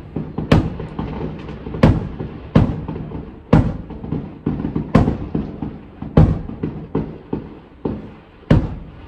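Fireworks going off outside, heard from inside the house: a string of sharp bangs about a second apart at uneven spacing, with smaller pops between them.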